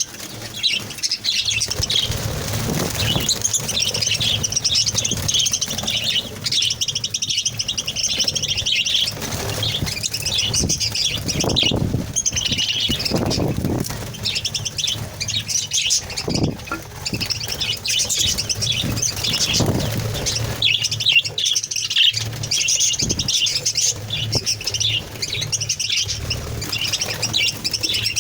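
A colony of budgerigars chattering and chirping, many birds at once in a dense, continuous twitter, with a low rushing sound now and then.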